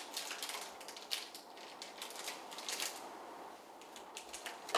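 Faint crinkling and small clicks of a plastic rice-ball (onigiri) wrapper being handled, irregular and sporadic.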